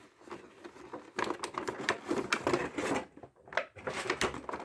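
A Funko Pop figure's cardboard box and plastic insert being handled as the figure is slid out, with irregular rustles, taps and scrapes starting about a second in.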